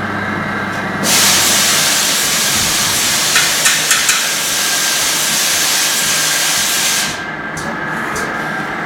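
Hyundai-Kia SKT-21 CNC lathe running, with a loud steady hiss that starts about a second in and cuts off about seven seconds in, and a few sharp clicks partway through; the machine's hum goes on under it.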